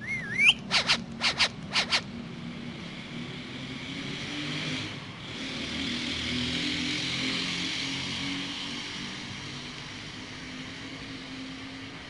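Indian ringneck parakeet giving a short wavering whistle, then a quick run of sharp, clipped calls in pairs over about a second. After that a steady rushing background noise swells and fades.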